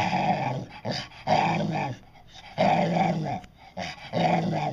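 Bull terrier 'talking': four drawn-out vocalisations in a row, each under a second, with short pauses between them, the pitch rising and falling like speech.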